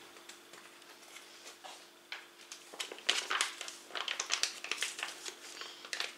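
Irregular light clicks and crinkling as a soft plastic sauce pouch is handled over a salad bowl, growing busier from about two seconds in.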